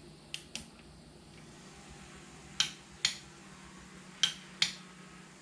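Click-type torque wrench clicking off at its 20 foot-pound setting as a bolt reaches torque: three sharp double clicks, the first faint, spaced a second and a half or more apart.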